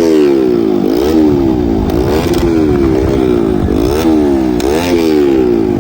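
Motorcycle engine revved over and over, its pitch jumping up and sliding back down about once a second.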